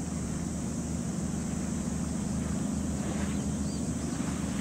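Steady low drone of a ship's engine with a light wash of wind and water noise.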